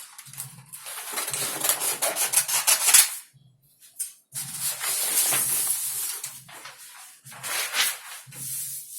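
Scratchy rubbing strokes of a marking tool drawing pattern lines, several long strokes with short pauses and a brief near-silent gap a little past three seconds in.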